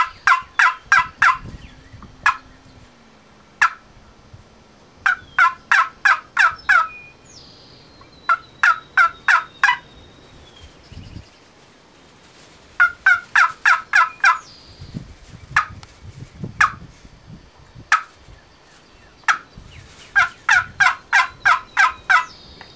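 Wooden turkey box call, handmade some fifty years ago, worked by hand in yelping runs. Each run is six to eight quick, sharp, high-pitched yelps, and single yelps come about a second apart between the runs.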